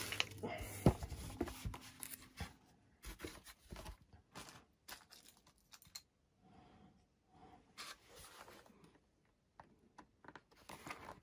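Faint handling noises at a workbench: short scratchy sounds and clicks, busiest in the first few seconds with one sharp click about a second in, then sparse light taps as a small servo and its wire pushrod are handled on a foam model-plane wing.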